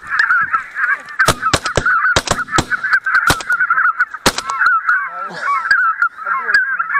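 A large flock of white-fronted geese honking continuously, broken by a rapid volley of shotgun shots from several guns, about eight sharp reports between about one and four and a half seconds in.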